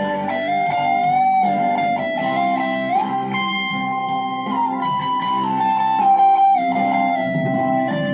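Electric guitar played through a Deviser TG-30 practice amplifier: a lead line of long sustained single notes with string bends over lower accompanying notes.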